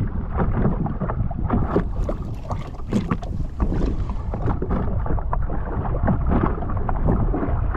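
Choppy sea water slapping and splashing irregularly against a jet ski's hull, over a steady rumble of wind buffeting the microphone.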